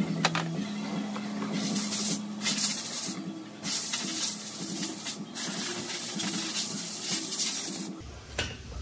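Repeated long bursts of hissing over a steady low hum, changing abruptly near the end.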